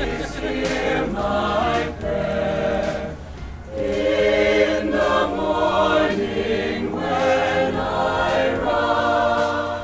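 Choir singing, several voices holding long notes in phrases, with brief breaths between phrases about two and three and a half seconds in.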